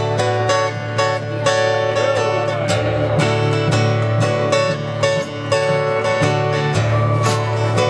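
Music led by a strummed acoustic guitar, with a steady rhythm of strokes over held chords.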